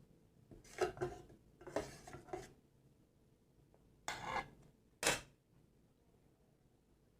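Panipuri eating-table sounds: a few short clinks and crackles of the crisp puris and serving dishes being handled, then a brief rustling crunch about four seconds in and one sharp crisp snap about a second later.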